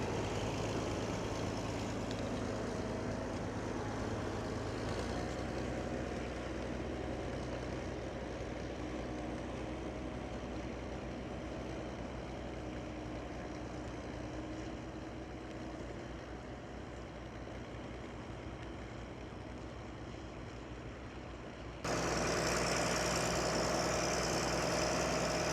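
County Super 6 tractor's six-cylinder diesel engine running steadily while pulling a four-furrow plough, gradually growing quieter. About 22 seconds in it cuts abruptly to a louder, closer engine sound.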